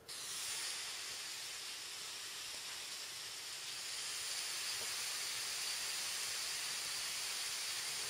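Steady hiss from a video recording made on an iPod Touch 4th generation, a little louder from about halfway through. It carries a really, really faint ticking: interference from the Wi-Fi adapter that sits right next to the microphone.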